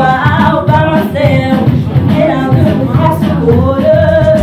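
A woman singing into a microphone over a backing track, ending on a long held note that rises slightly before it settles.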